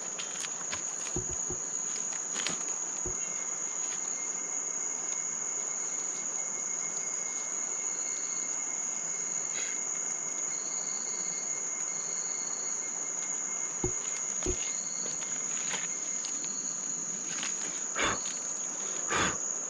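Night-time rainforest insect chorus: one insect's steady, high-pitched trill runs unbroken, while shorter calls from other insects come and go. A few soft knocks are heard, mostly near the end.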